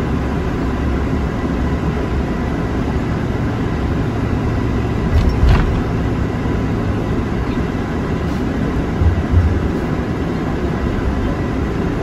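Steady low rumble of a coach bus's engine and road noise heard inside the passenger cabin while driving, with brief louder bumps about five and nine seconds in.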